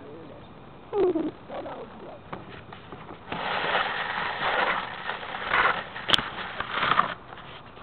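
Rustling and rubbing noise on a small onboard camera's microphone as the model rocket it is taped to is handled and moved, coming in uneven surges from about three seconds in. A brief falling tone sounds about a second in, and a sharp click comes about six seconds in.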